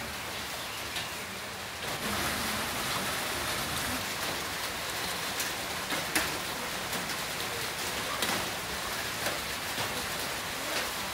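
Heavy rain pouring steadily, with sharp taps of individual drops hitting a surface. It grows a little louder about two seconds in.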